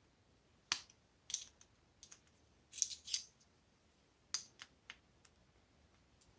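Faint, irregular clicks and scrapes of a small screwdriver prying at a stubborn plastic part on a washing machine motor, about a dozen sharp ticks with short gaps between.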